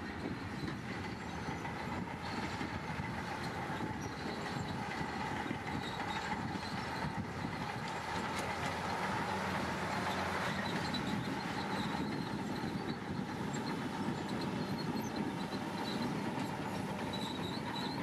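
Komatsu crawler bulldozer working, its diesel engine running steadily under the clatter of its steel tracks, with a faint high-pitched squeal.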